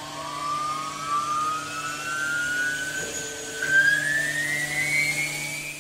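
Airbus A320 jet engine spooling up, heard in the flight deck: a whine rising steadily in pitch over a steady low hum.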